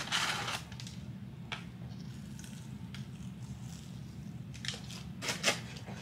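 Biting and chewing crispy fried chicken close to the microphone: a crunch at the start, a few faint clicks, then a cluster of crackling bites near the end, over a low steady hum.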